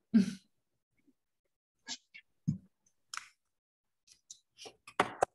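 Scattered short clicks and rustles from participants shifting on exercise mats and cushions, picked up by their microphones and chopped by the video call's noise suppression into brief bits with dead silence between; the loudest come right at the start and near the end.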